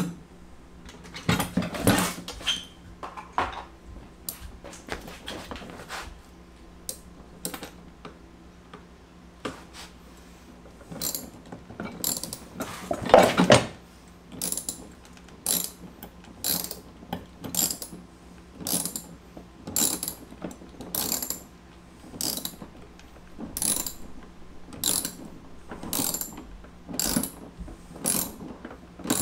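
Ratchet socket wrench clicking as nuts are tightened onto bolts on a cart's steel frame, in repeated short ratcheting strokes that settle into about one a second in the second half, with a louder metal clank about 13 seconds in.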